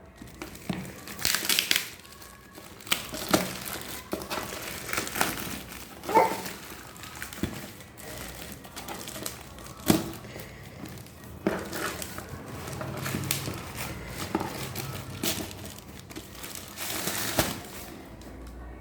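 Packaging being handled and opened: crinkling and rustling wrap with scattered sharp clicks and knocks, the loudest about six and ten seconds in.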